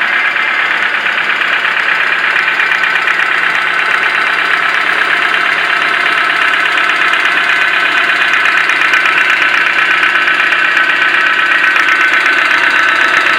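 Toyota 4E four-cylinder engine running steadily with a rapid, even knock, growing a little louder in the second half. The owner suspects something spinning is catching on something.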